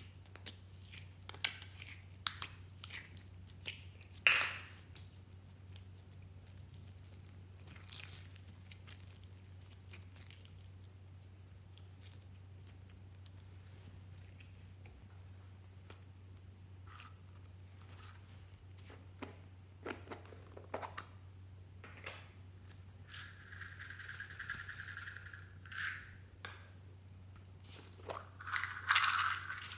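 Slime being squeezed and pulled by hand, giving scattered sharp sticky clicks and pops. In the last third, plastic packaging crinkles for a couple of seconds, twice.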